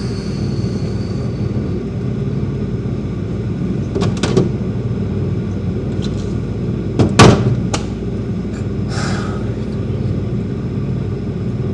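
Refrigerator and freezer being searched: a few light knocks about four seconds in and a loud thud a little after seven seconds, with a smaller one just after, over a steady low hum.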